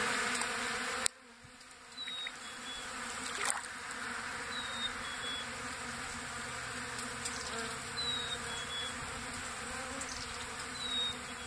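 A swarm of bees buzzing steadily over scattered birdseed, the buzz dropping sharply about a second in. A chickadee's two-note whistled song, a high note followed by a lower one, repeats about every three seconds.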